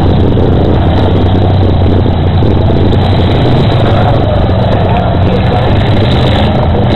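Demolition derby cars' engines running together in the arena, a loud steady din with a low hum.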